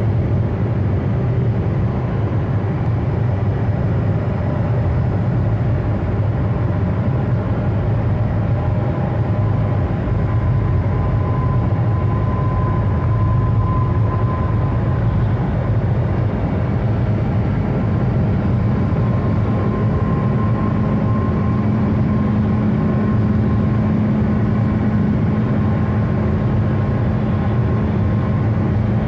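Ford Focus Mk1 1.6 16v four-cylinder engine held at about 6000 rpm near top speed, heard inside the cabin as a loud, steady drone mixed with road and wind noise, while the car slowly gains speed toward 200 km/h.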